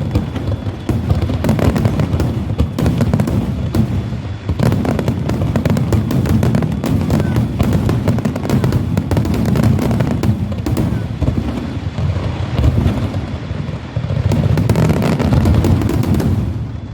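Finale barrage of aerial fireworks shells: rapid, overlapping booms and crackles with no gaps, with deep low booms that shake the ground. The barrage eases a little near the end.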